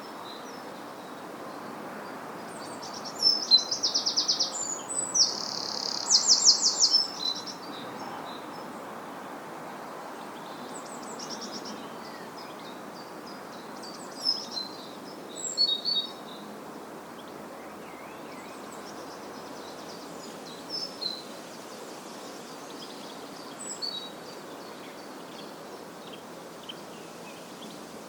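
Countryside ambience: songbirds calling over a steady background rush, with two loud, rapid trills a few seconds in and scattered shorter chirps and calls after.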